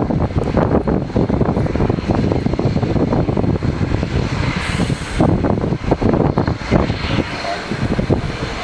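Boeing 747 jet engines running loudly and steadily.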